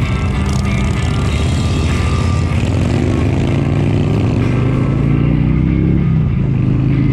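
Motorcycle engine running under way, its pitch rising as the bike accelerates about three seconds in, then levelling off, over a steady low rumble.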